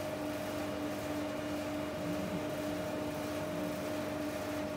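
Carpigiani soft-serve ice cream machine running with a steady, even hum while soft-serve is dispensed into a cone.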